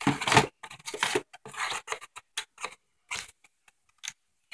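Handling noise from fingers rubbing and scraping on a handheld camera: a string of short scraping and rustling bursts, loudest at the very start, thinning out to a few ticks after about three seconds.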